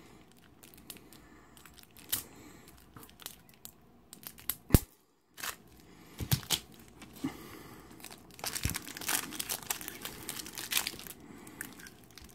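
Foil trading-card booster pack being picked and torn open with fingernails and crinkled in the hand: scattered sharp crackles and tearing, thickest in the last few seconds.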